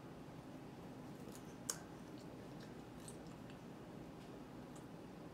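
Faint chewing of a piece of fruit, with scattered soft mouth clicks and one sharper click about a second and a half in.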